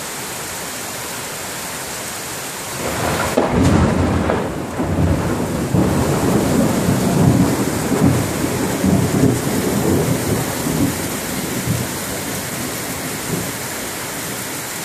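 Heavy tropical rain falling steadily throughout a thunderstorm. About three seconds in a long roll of thunder builds and rumbles on for some eight seconds before fading back under the rain.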